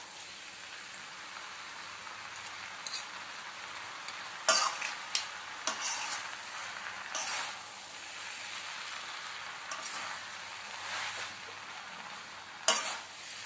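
Noodles and vegetables sizzling in a hot wok while being tossed and stirred with two large spoons. Steady frying hiss, with the spoons knocking and scraping against the pan a few times, loudest about four seconds in and near the end.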